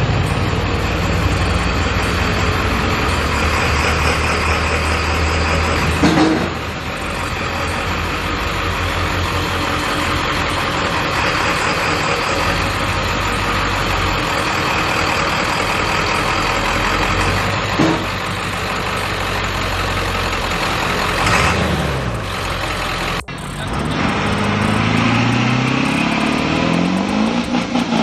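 Ford F-350's 7.3 L Power Stroke V8 turbo-diesel running as the truck is driven onto a shop lift, with a few short knocks. After a sudden cut near the end, an engine revs up in repeated rising sweeps.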